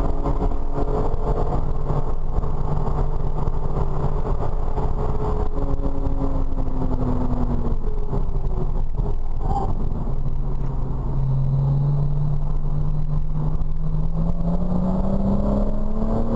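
Porsche Cayman R's flat-six engine heard from inside the cabin over steady road and tyre noise. The engine note sinks as the car eases off for a bend, then climbs steadily under acceleration through the last few seconds.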